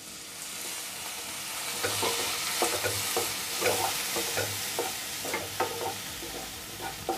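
Onion-tomato masala sizzling in a non-stick pan after a little water has been added, the hiss swelling in the first couple of seconds. A wooden spatula stirs and scrapes against the pan a few times a second.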